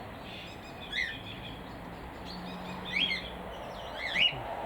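Aviary birds giving short chirping calls, three or four in all, the loudest near the end, over a steady background hiss.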